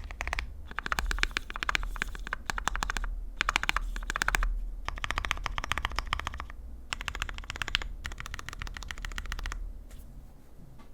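Typing on an ai03 Vega mechanical keyboard with Krytox-lubed Cherry Hyperglide Black linear switches, an aluminium plate and PBT keycaps: quick runs of keystroke clacks broken by short pauses, dying away about a second before the end.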